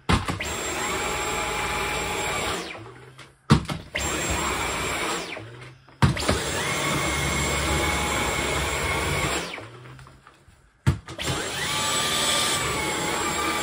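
Dyson V11 cordless stick vacuum with a soft roller head, switched on and off four times with its trigger. Each time the motor starts sharply, runs with a steady whine for two to four seconds, then winds down as it is released.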